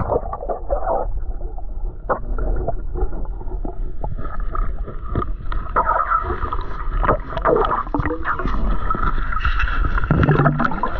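Water sloshing and splashing, with scattered sharp knocks, over a steady low rumble.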